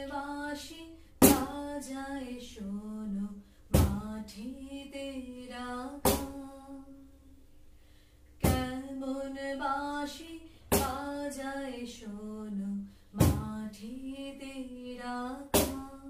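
A woman singing unaccompanied in short phrases, with a sharp percussive hit keeping time at the start of each phrase, about every two and a half seconds.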